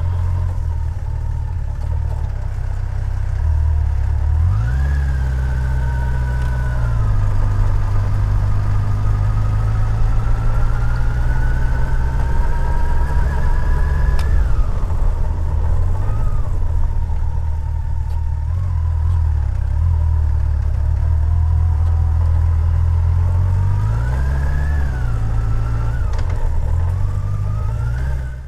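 Touring motorcycle engine running as the bike is ridden along an unpaved gravel lane. The revs rise and fall with the throttle: they pick up about four seconds in, climb slowly for several seconds, ease off, and pick up briefly again near the end.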